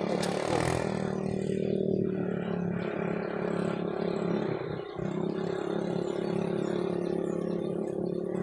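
An engine running steadily, a continuous hum at a constant pitch, briefly dipping about five seconds in.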